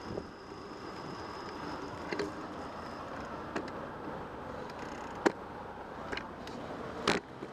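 Steady tyre and wind noise of a bicycle rolling along a city street, heard from a camera mounted on the bike. Scattered sharp clicks and knocks of the bike rattling over rough pavement come through, the loudest about five seconds in and a longer one near the end.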